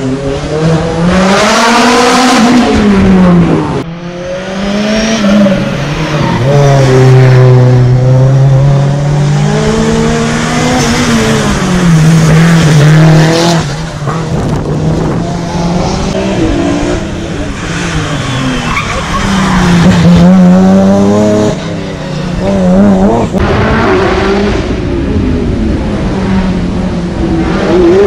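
Race car engines revving hard, pitch climbing and dropping again and again through gear changes, as cars pass one after another in a hill climb.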